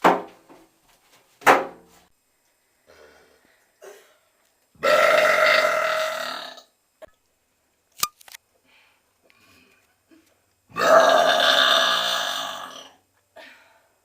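A young woman's deliberate, drawn-out burps: two long ones, each lasting about two seconds, about six seconds apart. A couple of short sharp clicks come before the first.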